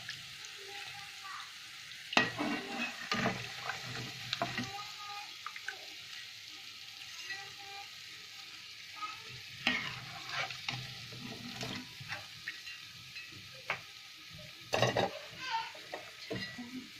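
Oil sizzling steadily in a kadai as battered cauliflower florets deep-fry, with scattered clinks and scrapes of a metal slotted skimmer against the pan and a wire strainer as fried pieces are lifted out.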